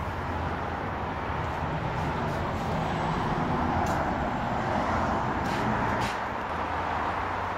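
Ford Explorer's engine idling steadily, with a few faint clicks over it.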